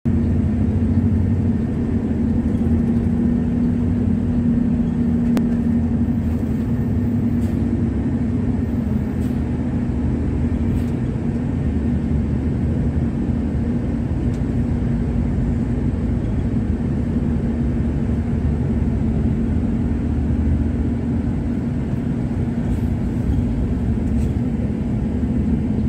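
Steady low engine and road rumble of a moving road vehicle, heard from inside the cabin, with a constant low hum running through it.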